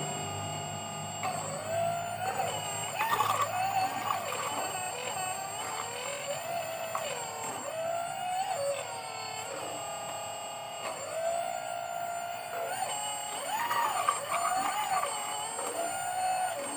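Hydraulic pump of a radio-controlled excavator whining steadily, its pitch dipping and recovering over and over as the valves are worked and the load comes on and off.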